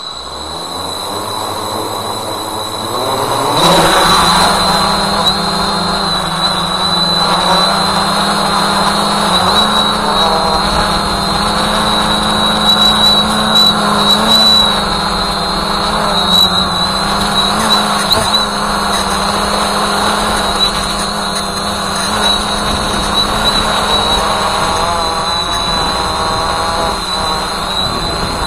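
Walkera Voyager 3 quadcopter's electric motors and propellers spinning up from the ground, rising in pitch to a sharp jump at lift-off about three and a half seconds in, then running steadily in flight with a constant high whine. Heard close up from a camera on the drone itself.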